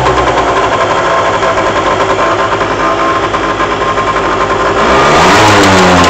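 Two-stroke engine of a water-cooled Peugeot Speedfight 2 scooter held at high revs under throttle, then the revs drop about five seconds in and rise again. The owner hears a rattle only when giving throttle, its cause unknown to him.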